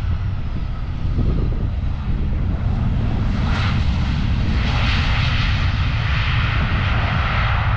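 Jet engines of a landing Airbus A320-214 (CFM56 turbofans) heard across the airfield during touchdown and rollout: a steady low rumble with a broad rushing hiss that swells about three and a half seconds in and stays up.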